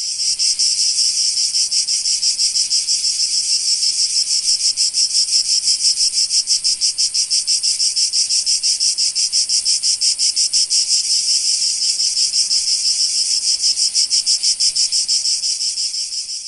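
A loud singing insect, cicada- or cricket-like, making a continuous high-pitched buzzing call that throbs about five times a second.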